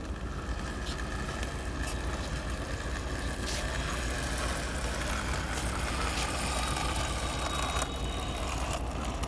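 A motor running steadily with a low, continuous hum.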